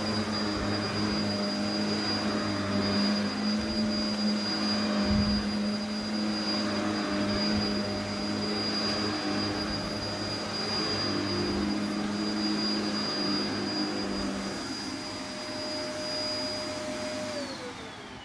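Vacmaster Captura vacuum cleaner running steadily with a high motor whine, then switched off near the end, its whine falling as the motor spins down.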